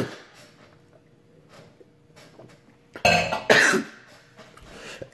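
A man coughs hard, a sudden loud burst about three seconds in after a pause in his speech.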